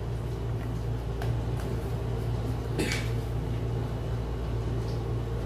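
A steady low mechanical hum from a household fan or appliance motor, with a few faint clicks about a second in and a brief scrape about three seconds in.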